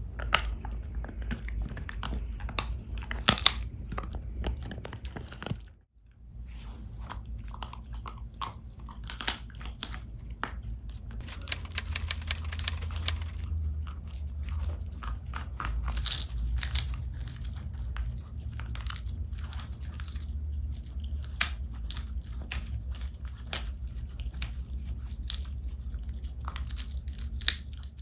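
A dog chewing a dried beef chew stick, with many sharp crunches in quick succession and a short break about six seconds in.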